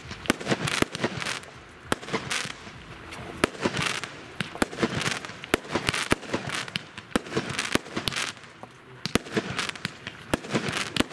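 Fireworks display going off: a rapid, irregular series of sharp bangs, several a second, with short hissing rushes between them.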